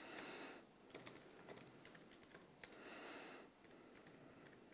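Typing on a laptop keyboard: faint, scattered key clicks, with two short soft hisses at the start and again about three seconds in.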